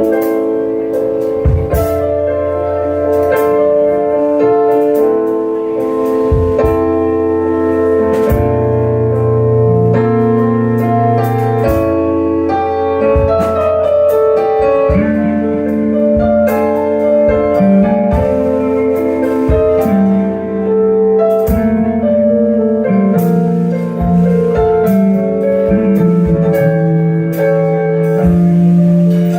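Instrumental keyboard music with held chords and a bass line that shifts every few seconds.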